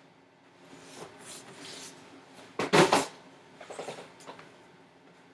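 Handling noises: soft knocks and rustles, with a louder clatter of several quick sharp knocks near the middle.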